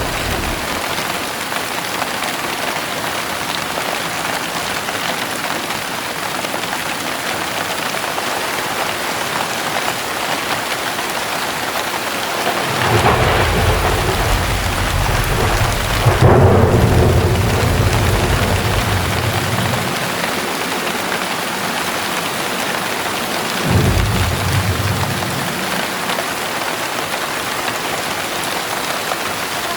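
Heavy rain falling steadily in a thunderstorm. A long roll of thunder builds about halfway through, peaks in a loud crack, and dies away over several seconds. A shorter clap of thunder follows near the end.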